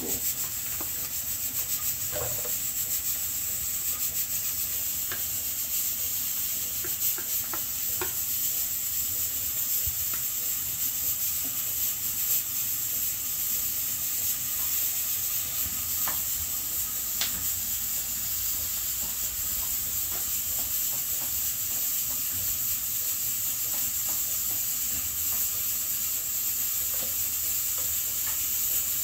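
Chopped onion frying in oil in a non-stick frying pan: a steady sizzle, stirred with a spatula, with a few light scrapes and taps.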